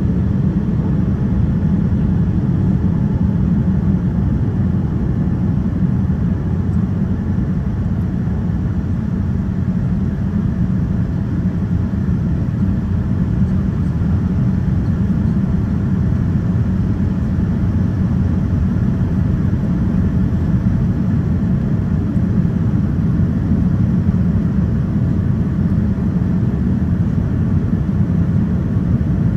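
Cabin noise of a Boeing 787-9 Dreamliner: a steady low rumble of engines and airflow that does not change.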